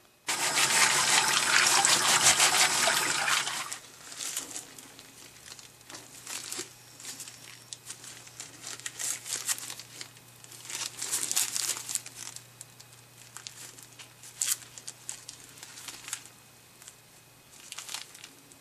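Running tap water over clams in a bowl, the shells rubbed together to wash them, loud for about the first three and a half seconds. Then the light crinkle and rustle of thin plastic gloves, on and off, as a shrimp is handled and deveined with a toothpick.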